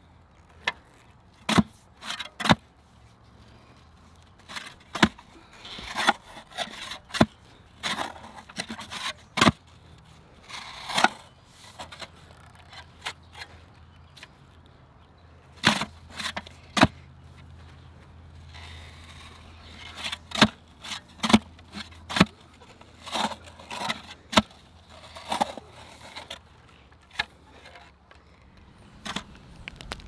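Manual clamshell post-hole digger working a hole in soil: repeated sharp strikes as the blades are jabbed into the ground, with scraping of dirt as the jaws are closed and pulled out.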